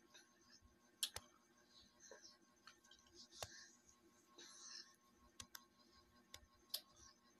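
A baby sucking on a feeding bottle in a quiet room: a few faint, irregular clicks and soft breathy sounds.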